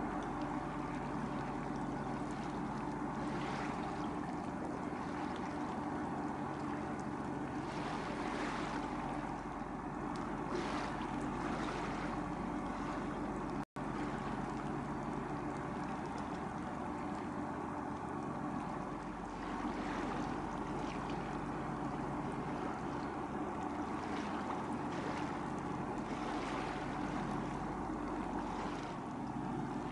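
Engine of a moored high-speed passenger boat idling steadily, with water splashing from its stern outlets into the harbour.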